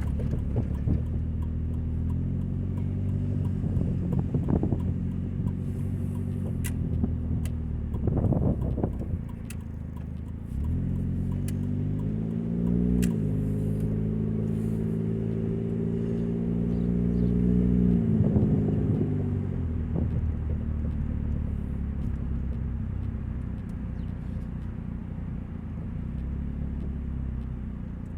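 The four-cylinder engine and leaking exhaust of a 2000 Nissan Altima running while driving, with a loud exhaust drone. The pitch rises under acceleration about ten seconds in, holds, then falls again a few seconds later.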